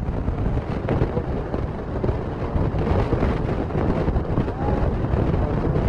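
Heavy rain and wind buffeting a phone microphone: a loud, dense, steady rush with strong low buffeting that drowns out the voices.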